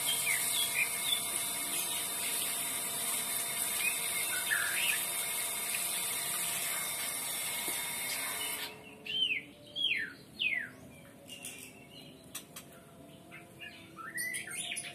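Water from a garden hose spraying steadily over an orchid's roots, then cutting off suddenly a little over halfway through. Small birds chirp with short rising and falling calls, plainer once the water stops.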